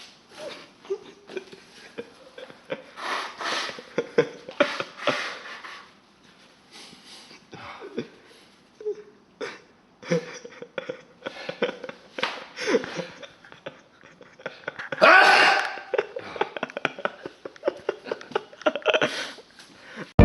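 A loud, sudden sneeze about fifteen seconds in, among scattered small clicks and knocks.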